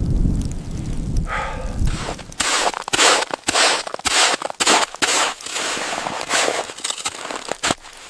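A rapid, irregular series of short crunches in snow, most likely footsteps in deep, dry snow, after a low rumble at the start.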